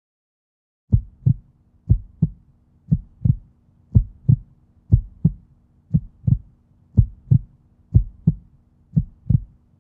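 Heartbeat sound effect: a low double thump, lub-dub, about once a second, starting about a second in over a faint steady hum.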